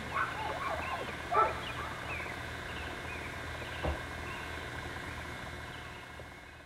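Distant animal calls: a run of quick, warbling cries that bend up and down in pitch during the first two and a half seconds, over a steady low hum. A single soft bump comes about four seconds in, and the sound fades toward the end.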